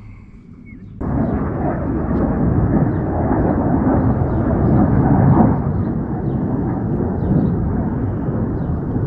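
Wind buffeting the microphone: a loud, steady rumble that starts suddenly about a second in, with faint ticks over it.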